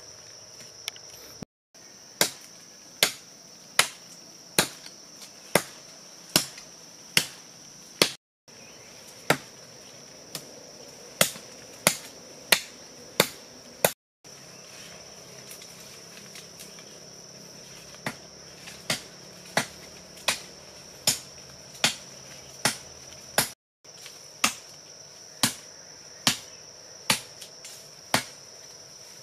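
Wood being chopped with a blade: sharp, even strokes a little over one a second, with a steady high drone of insects behind them. The strokes are broken by a few short gaps of silence.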